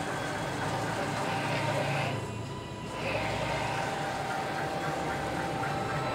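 JHFVista T90 large-format inkjet printer's print-head carriage sweeping across the banner, a steady mechanical whir with a few steady tones. It dips briefly about two seconds in, then comes back for the next pass.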